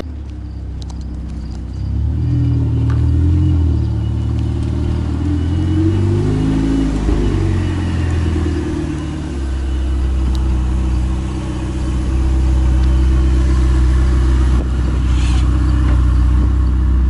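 Ferrari sports car engine running and being revved, its pitch rising and falling for several seconds, then settling into steady running from about ten seconds in.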